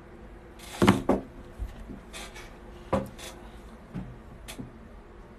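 A series of knocks and clunks, the loudest a close pair about a second in, then several lighter ones over the next few seconds.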